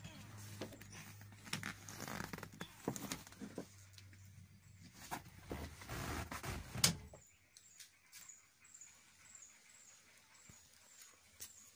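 Clicks, knocks and rustling from handling inside an SUV's rear cabin, the loudest a sharp click about seven seconds in. A low steady hum underneath stops at about the same moment.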